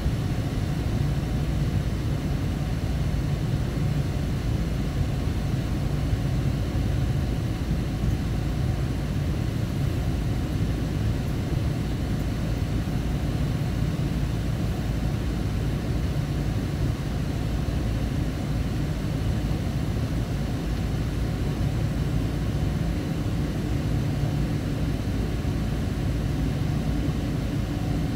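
Cabin noise of a Boeing 777-200 taxiing, heard inside the cabin: a steady low rumble from its Rolls-Royce Trent engines at low thrust and the rolling airframe.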